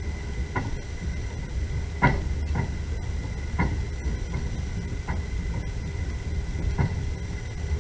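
Passenger train carriage running, heard from inside: a steady low rumble with about six sharp knocks and rattles at uneven intervals, the loudest about two seconds in.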